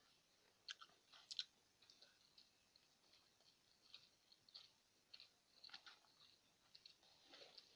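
Faint, scattered wet clicks and smacks of someone eating rice and curry by hand: mouth chewing and fingers squishing rice into the curry on the plate. The loudest clicks come about a second and a half in.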